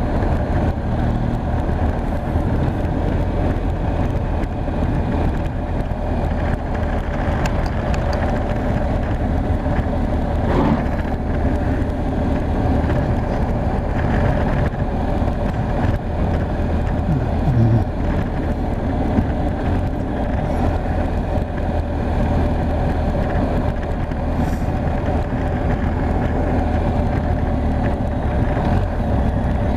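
BMW R 1250 GS Adventure's boxer-twin engine running steadily at road speed, mixed with wind and road noise.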